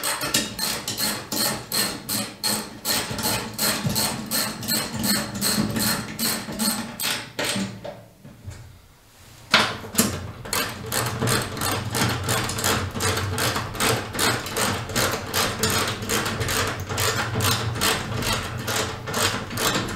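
Ratchet wrench clicking in a steady rhythm, about three clicks a second, as bolts are run in at the radiator mount. The clicking stops for about two seconds near the middle, then picks up again.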